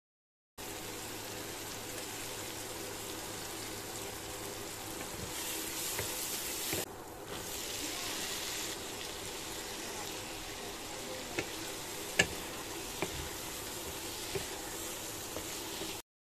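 Potato sticks and small prawns frying in oil in a non-stick wok, a steady sizzle. Several light knocks of a wooden spatula against the pan come in the second half as the mixture is stirred.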